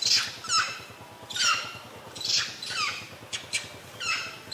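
Long-tailed macaques giving a string of short, high alarm screams, about six, each falling in pitch, at a python close by.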